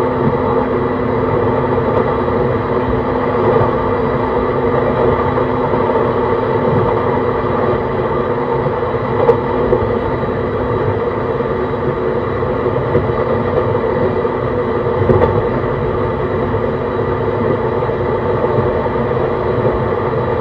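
JR East E131 series 600 subseries electric train, fitted with Hitachi hybrid SiC inverters, running at steady speed and heard from inside the car: an even rolling rumble with steady humming tones. Two brief knocks come from the running gear, about halfway through and again some six seconds later.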